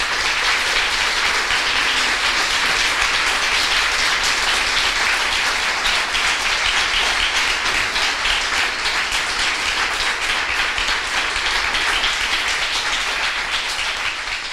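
Audience applauding: a dense, steady wash of many people clapping.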